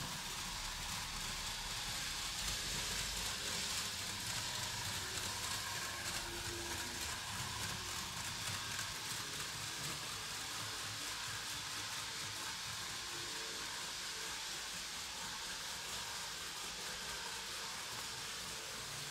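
Märklin V 160 HO model locomotive and its coaches running on metal three-rail track: a steady rolling hiss of wheels and pickup shoe, a little louder a few seconds in.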